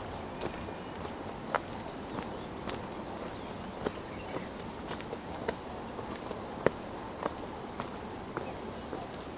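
A steady high-pitched insect chorus from the undergrowth, with irregular sharp taps of footsteps on a stony dirt trail roughly every half second to a second.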